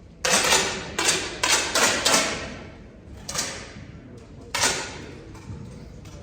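Air rifles firing on a shooting line: about seven sharp shots at irregular intervals from different rifles, several in quick succession near the start and two more spaced out later, each followed by a brief ring.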